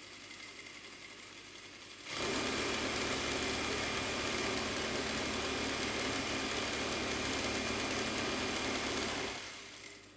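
Gemsy GEM8900 single-needle lockstitch industrial sewing machine. A faint hum runs for about two seconds, then the machine sews at speed through denim for about seven seconds with a fast, even stitching rattle, and it winds down and stops near the end.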